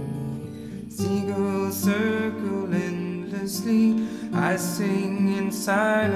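Background music: a gentle folk song with strummed acoustic guitar, and a singing voice coming in about a second in.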